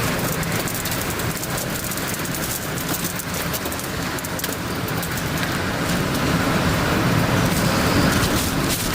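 Traffic in heavy rain: vehicles running on a wet, flooded road, a steady rushing with many scattered crackles and a varying low rumble.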